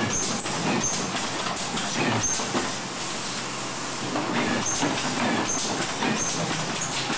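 Automatic corrugated boxmaker running, with clattering and knocking as corrugated sheets feed along its roller conveyor. A short high chirp recurs about once a second.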